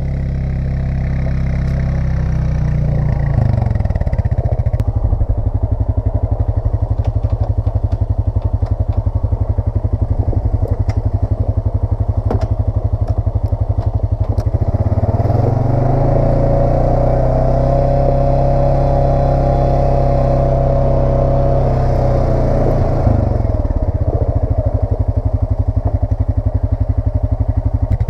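ATV engine running as it is ridden along a gravel trail. The engine speed rises about halfway through, holds for several seconds, then drops back. Scattered light clicks and rattles can be heard in the first half.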